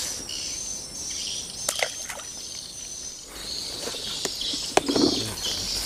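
Outdoor swamp ambience of insects trilling steadily in a high, thin chorus. A few short clicks come through about two seconds in and again near the end.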